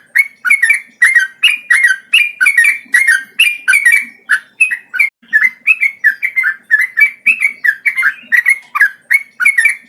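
Male yellow-vented bulbul (trucukan) singing a long, unbroken run of quick bubbly phrases, two or three short sliding notes a second without a pause.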